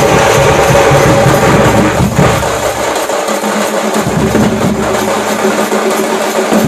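Street drum band of large double-headed bass drums and handheld frame drums beaten with sticks, playing a loud, continuous rhythm. The deep bass drum drops out for about a second midway.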